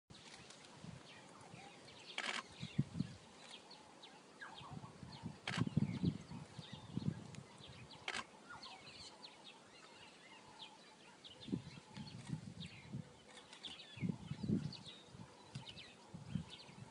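Small birds chirping and twittering throughout, with a few sharp clicks and scattered low thumps and rumbles.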